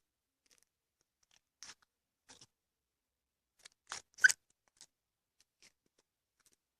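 Clear slime being stretched and poked by hand, giving scattered short clicks and pops with quiet gaps between, the loudest pair about four seconds in.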